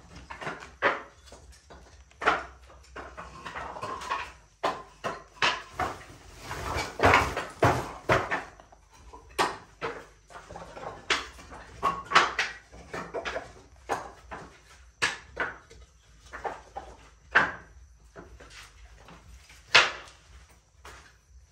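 Irregular knocks, taps and scrapes of objects being handled and set down, one or two a second, with a longer rustling scrape around seven seconds in.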